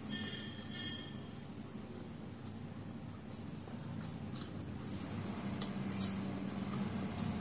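Eating sounds: chewing fried chicken lollipop and fingers picking at the pieces, with a few soft clicks, over a steady high-pitched tone.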